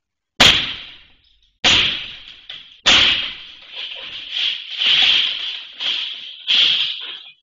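Glass showroom door being smashed in: three heavy blows about a second apart, then a longer run of crashing and rattling glass as it breaks out.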